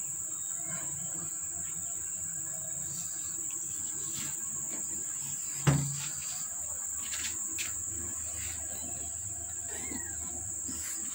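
Insects chirring steadily at a high pitch, with a single sharp knock a little past halfway through and a few faint clicks.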